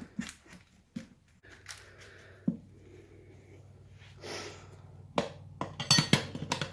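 Metal tire spoons clicking and clinking against a small lawn-mower wheel rim as a tire bead is levered over it, a few scattered knocks with a quick run of clinks near the end. A faint low steady hum runs under it from about a second and a half in.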